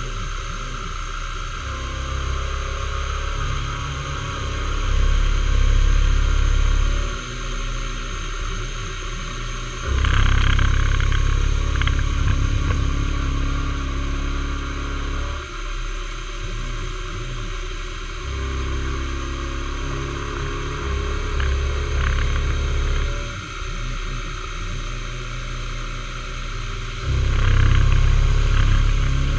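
Milling machine with an end mill cutting a metal block held in a vise: a steady machine whine with louder stretches of cutting noise that swell and fall back every several seconds as the cutter works through the pass.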